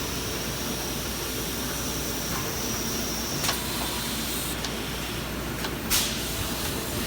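Steady hum and hiss of factory machinery, with a thin high whine that stops about halfway. There are sharp clicks: one about halfway and a louder one near the end.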